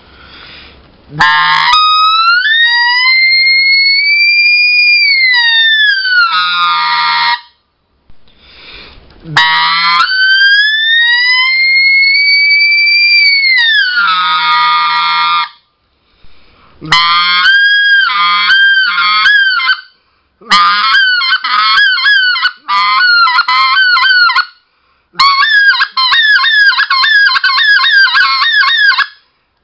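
RedBone specklebelly goose call blown in two long notes, each starting low in voice, climbing into clear high air and falling back at the end. This is the 'elk bugle' exercise that finds how much pitch range the call has. In the second half the call is blown in quick runs of short notes.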